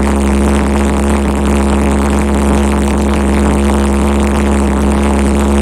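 Homemade LPG-fuelled valveless pulse jet engine running continuously: a loud, steady, deep drone with a fixed pitch, its combustion chamber red-hot.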